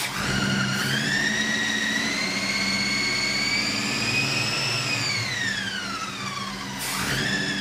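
Shiny fluted (multi-ribbed) Dayco accessory drive belt whining on a running engine: a high whine that rises, holds, then slides down in pitch, cuts off briefly near the end and comes back. The noise is the belt itself, though it sounds like a bad bearing, alternator or power steering pump.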